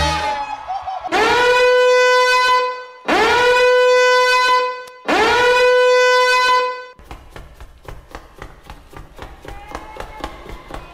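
Dance-routine music track: three long, horn-like held notes on the same pitch, each sliding up into it at the start, then a quieter, quick ticking beat.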